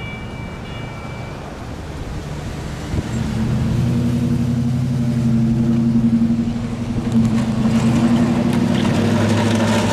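A heavy engine running steadily with a low, even hum, which grows louder about three seconds in.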